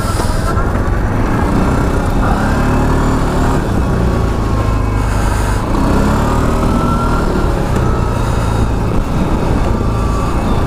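A CF Moto 625 cc ATV's engine running steadily while it drives along a snowy track, its note rising and falling gently with the throttle.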